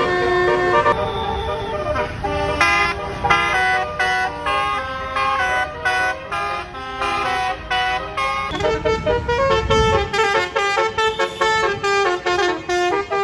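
Tour bus basuri telolet horn, a multi-tone musical air horn, playing a fast melody of short toots with several notes sounding at once, over the rumble of the bus engine. The engine rumble swells about ten seconds in.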